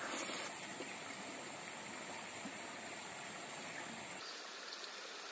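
Steady rushing noise like running water, with an abrupt change in the background about four seconds in.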